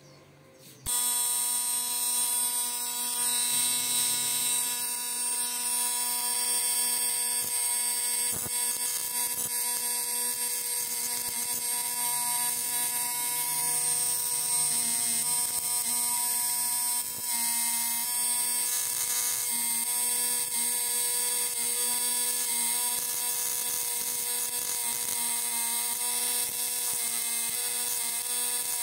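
Homemade battery-powered electrofishing inverter switched on about a second in, giving a loud, steady electrical buzz with a high hiss above it. The buzz wavers briefly about halfway.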